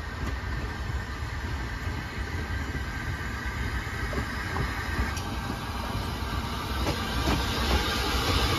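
Narrow-gauge double Fairlie steam locomotive and its coaches running into the station, growing louder as they approach. From about halfway through, short clicks from the wheels passing over the rail joints come through.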